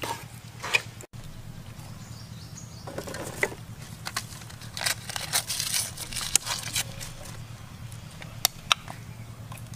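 A thin stream of liquid poured into a metal pot of milky liquid, with a trickling, splashing hiss and a few sharp metallic clicks of the ladle against the pot, over a steady low hum.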